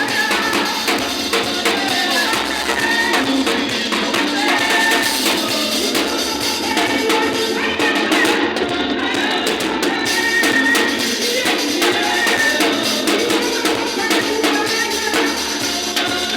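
Church band playing gospel music live: keyboard with drums and a tambourine-like beat, and voices singing. The sound is thin, with almost no bass.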